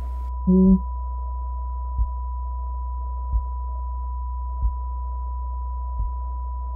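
Film sound design: a steady high pure tone over a loud low drone, with the normal room sound cut away. A dull thump repeats about every second and a third, and a brief muffled voice sounds about half a second in.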